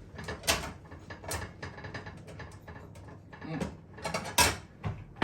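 Pizza being cut: a run of irregular sharp clicks and crunches as the cutter goes through the crust, with a louder knock about four seconds in and another at the end.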